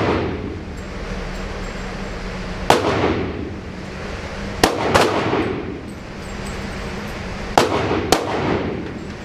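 Five gunshots from other shooters in an indoor range, each echoing off the walls: one about three seconds in, a quick pair a little before five seconds, and another pair about half a second apart near eight seconds. Under them runs a steady low hum.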